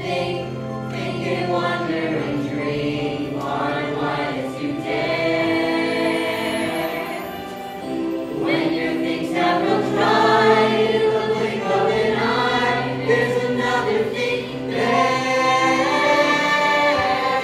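A chorus of voices singing a musical-theatre number together, with held notes, over a steady accompaniment.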